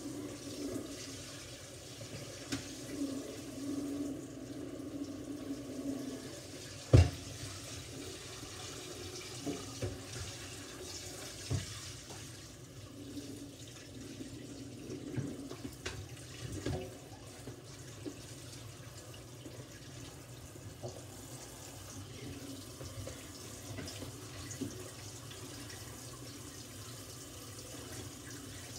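Kitchen faucet running into a stainless steel sink while dishes are rinsed and scrubbed by hand, with occasional knocks of dishes being handled in the sink, one loud knock about seven seconds in.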